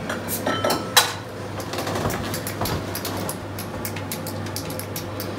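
Clinks and clicks of glassware behind a bar, a quick run of small ticks with a sharper knock about a second in, over a steady low hum.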